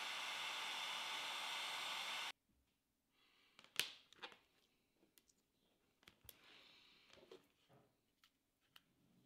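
Heat gun blowing steadily on heat-shrink tubing over an XT60 connector's wires, switched off sharply about two seconds in. Then a few faint clicks and knocks as the connector and cable are handled.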